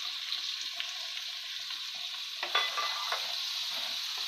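Finely chopped onions sizzling steadily in hot oil with whole spices in a kadai, just added to be fried until brown. From about halfway on a wooden spatula stirs them, with a few short scrapes and knocks against the pan.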